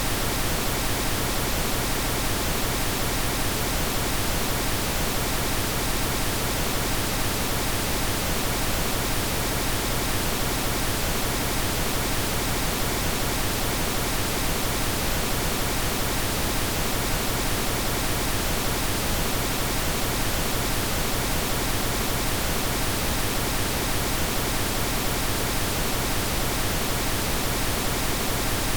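Steady synthesized pink noise: an even, unchanging hiss across all pitches, with no tones or events.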